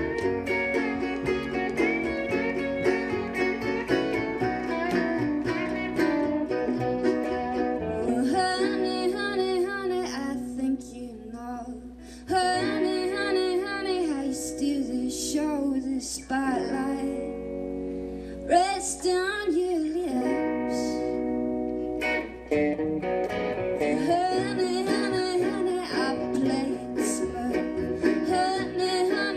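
A live band playing a song: a woman sings lead over electric guitar, her own strummed guitar and an upright bass.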